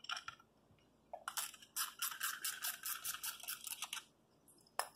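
Half-inch ratcheting wrench clicking rapidly as it backs off the nut on a battery tie-down strap. A short run of clicks at the start, then a steady run of fast clicks for about two and a half seconds, and one sharp click near the end.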